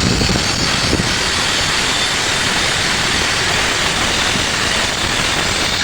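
Stick-welding arc crackling and hissing steadily as a weld bead is run on a fabrication joint.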